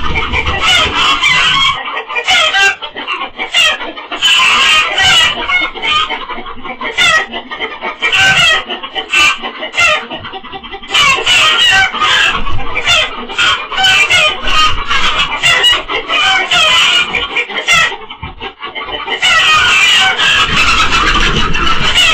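Hens squawking and cackling in alarm with a fox loose in the coop. The racket is loudest at the start and again near the end, and dips twice in between.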